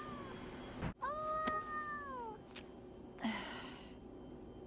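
A cartoon cat meowing: one long drawn-out meow starting about a second in that holds its pitch and then drops at the end, with a short breathy sound a couple of seconds later.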